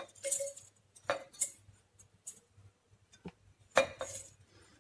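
Dried red chillies and whole spices tipped from a small plate into a stainless-steel mixer-grinder jar: a run of separate clinks and rattles as they land on the steel, some with a short metallic ring.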